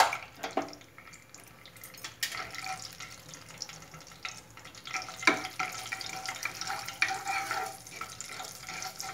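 Whole cinnamon and cardamom sizzling and crackling in hot ghee in a non-stick kadhai. The sizzle picks up about two seconds in, and a wooden spatula stirs the spices near the end.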